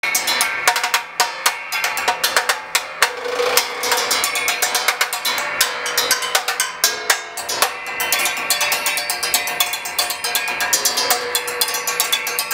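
Homemade percussion instrument played rapidly with thin sticks. It is built from a large coiled metal spring and upright metal rods on the black metal base of a late-1940s Magic Chef stove. It gives quick, dense strikes with ringing metallic tones.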